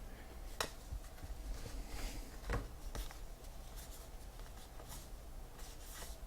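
Trading cards being handled and flipped through by hand: scattered soft clicks and light swishes as cards slide across one another, with sharper taps about half a second and two and a half seconds in.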